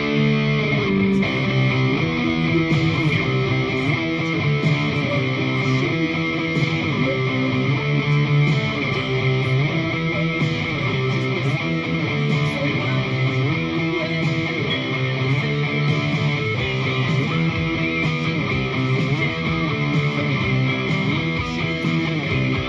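Electric guitar playing a repeating rock riff of chords, with bass underneath.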